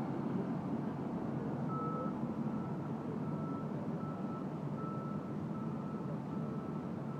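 Fire truck's back-up alarm beeping steadily, about one beep every three-quarters of a second, starting about two seconds in, over the low rumble of the tiller ladder truck's engine as it reverses.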